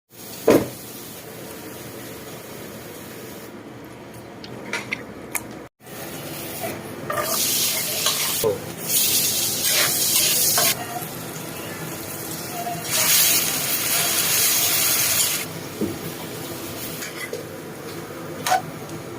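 Kitchen cooking sounds: a steady hiss that swells louder in two long stretches, with scattered clicks and knocks of utensils, broken by a brief cut about six seconds in.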